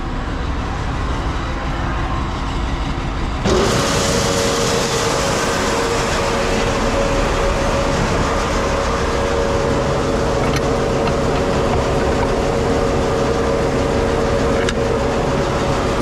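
Grain pit auger starting up about three and a half seconds in, then running with a steady whine over a loud rushing noise. Before it starts, a low engine rumble is heard.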